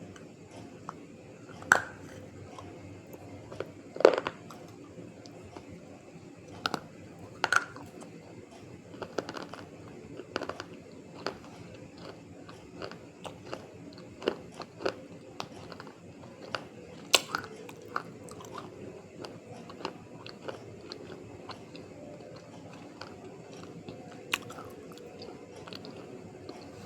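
Close-up biting and chewing of crunchy white 'broken' edible clay pieces. Sharp irregular crunches come every second or so, loudest about 4 and 17 seconds in, and thin out toward the end.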